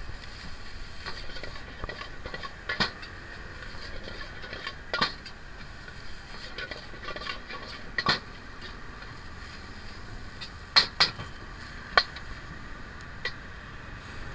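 Metal ladle and spatula clanking against a steel wok as fried rice is stir-fried, a sharp clank every second or two with two in quick succession near the end, over a steady hiss.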